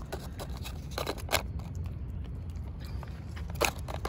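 Cat eating chunks of wet cat food, with a few sharp clicks of chewing and of the foil food pouch being squeezed, over a low steady rumble.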